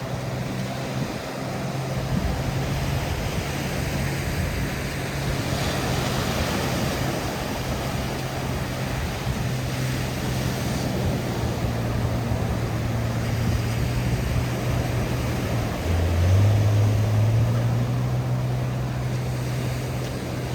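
Waves washing onto a sandy beach, with a steady low engine hum underneath that dips in pitch about 16 seconds in and climbs back.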